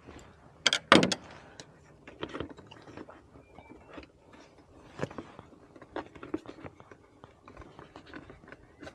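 Irregular clicks and knocks from air filter box parts being handled and fitted, with the loudest cluster of knocks about a second in.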